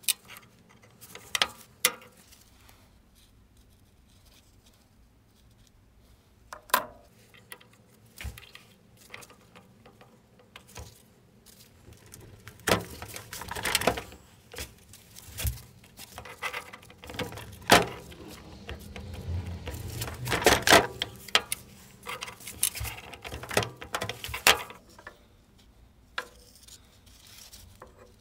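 Metal tools and parts being handled: scattered clinks, knocks and rattles, busiest in the second half, over a faint low hum.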